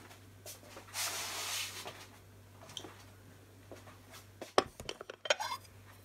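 A brief rustle about a second in, then, from about four and a half seconds, a run of sharp clinks and knocks of a table knife against crockery as butter is taken up to spread on the bread.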